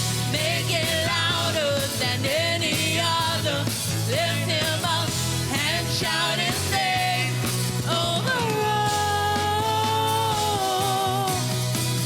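Worship song: a singer's melody over a band with a steady bass line, ending in a long held note near the end.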